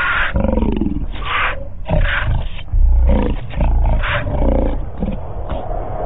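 A lion snarling and roaring in a fight, in repeated loud bursts every half second or so, stopping about five and a half seconds in.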